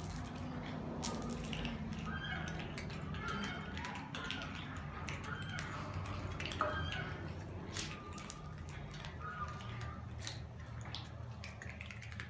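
A group of cats crunching hard dry kibble off a tiled floor: many scattered sharp clicks and crunches at an uneven rate.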